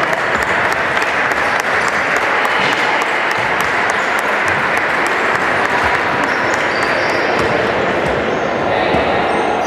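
Steady applause of many hands, with voices mixed in.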